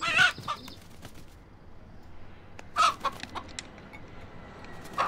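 A broiler rooster beating its wings with a harsh call at the start, then a couple of short clucks about three seconds in and another near the end.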